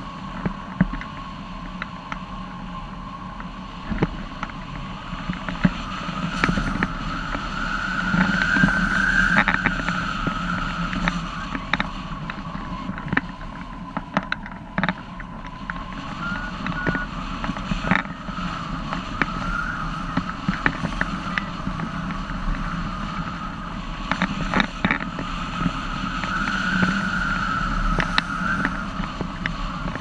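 Air rushing past a hang glider in flight in gusty wind: a steady rushing noise with a low rumble and a high whistle that rises and falls in pitch, louder twice as the airspeed picks up, with scattered sharp ticks and rattles.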